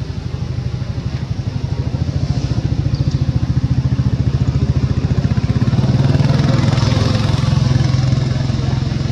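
A small motorbike-type engine runs steadily with a rapid low pulsing, growing louder about six seconds in.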